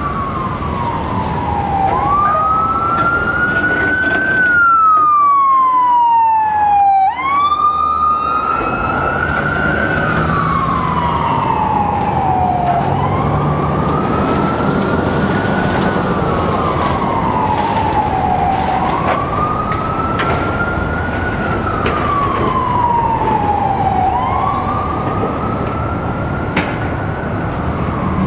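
A siren wailing, its pitch rising and falling slowly about every five to six seconds, over the steady low running of heavy demolition machinery.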